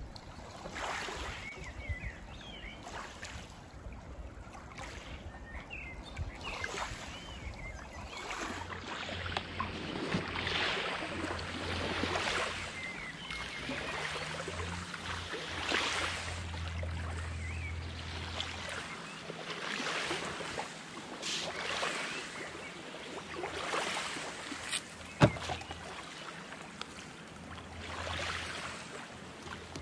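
Small waves lapping at the shore in soft washes every second or two. A low rumble runs through the middle, and there is a single sharp click about three-quarters of the way through.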